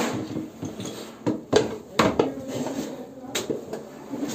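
Metal tools and parts clinking and knocking as they are handled by hand, about five sharp strikes spread over a few seconds with quieter rummaging between.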